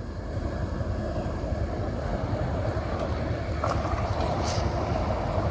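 Steady rushing of river water over rapids, a continuous low rush, with a couple of faint brief clicks in the middle.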